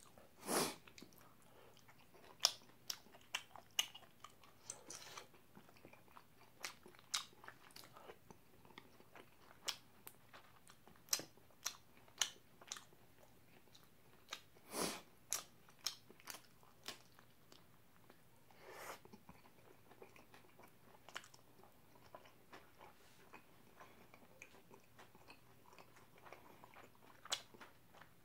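Close-up eating of battered, sauced fried pork (tangsuyuk): irregular crisp crunching bites and wet chewing, with a few louder, longer bites spread through.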